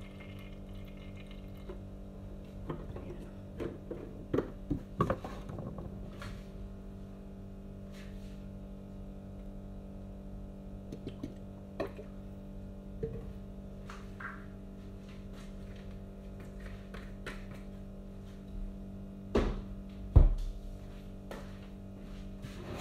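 Kitchen handling sounds as the last oil is drained from an upturned plastic cooking-oil bottle into a frying pan: scattered knocks and clicks of the bottle, over a steady low hum. Two heavier thumps come near the end, the second the loudest sound here.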